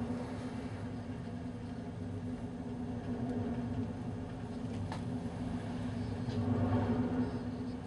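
Steady low drone of the Pont Aven car ferry's engines and onboard machinery, with a few short clicks, one about five seconds in.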